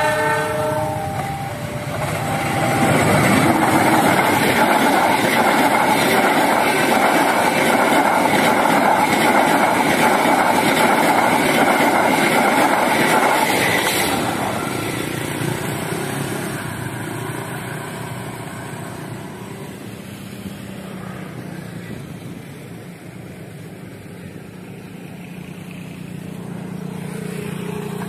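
Passenger train hauled by a CC 206 diesel-electric locomotive. It gives a short horn blast that steps through several notes, then the locomotive and carriages run past close by with the clickety-clack of wheels over the rail joints. The roar is loudest for about ten seconds, then fades as the last carriages go by.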